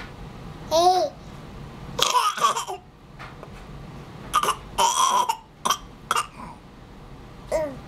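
A baby eating applesauce makes a string of short, breathy sucking and lip-smacking noises, each a brief burst. A short high vocal sound comes about a second in and again near the end.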